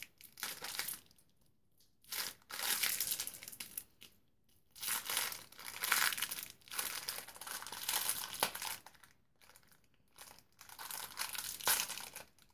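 A small plastic wrapper crinkling in irregular bursts as it is twisted and pulled at by hand to tear it open, with short pauses between bursts.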